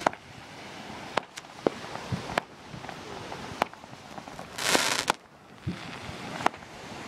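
Aerial fireworks going off: about eight sharp bangs at irregular intervals over a steady crackling hiss. A little before five seconds in comes the loudest sound, a half-second whoosh of hissing.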